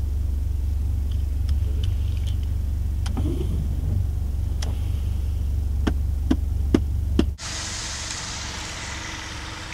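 An old saloon car's engine running with a steady low hum, heard from inside the cabin, with a scatter of sharp clicks and knocks. About seven seconds in, the sound cuts abruptly to a steady hissing rush over a faint hum.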